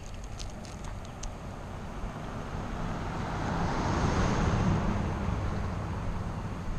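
A car going past on a road: a rush of tyre and engine noise that swells to its loudest about four seconds in, then fades away.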